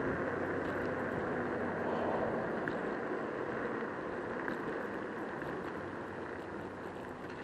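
Steady wind and road noise of a Joyor S5 electric scooter being ridden along a street, picked up by a handlebar-mounted camera, getting gradually quieter toward the end as it slows.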